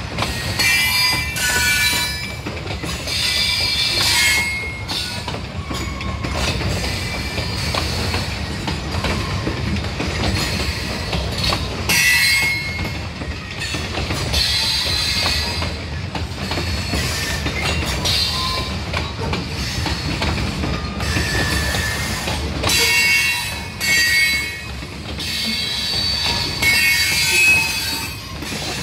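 Freight train of covered hopper cars rolling past, its steel wheels squealing on the rail where the track starts to curve: metal on metal. The high squeal comes and goes in short bursts over a steady low rumble.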